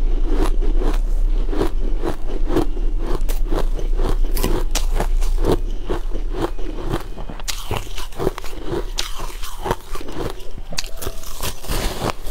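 Frosty ice chunks being bitten and chewed close to a clip-on microphone: a steady run of crisp, crackling crunches, several a second.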